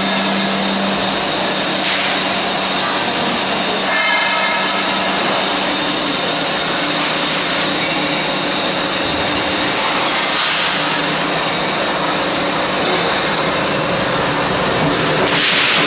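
Multi-spindle drilling machine running, its row of drills boring into a metal tube under coolant spray: a loud, steady mechanical noise, with several high steady whining tones joining in about four seconds in.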